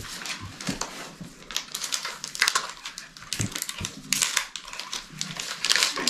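Foil Pokémon booster-pack wrappers and trading cards being handled, giving an irregular run of crinkling and crackling.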